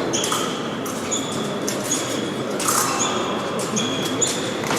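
Fencing bout in progress in a large hall: short, high-pitched squeaks recur every half second to a second over a steady murmur of hall noise.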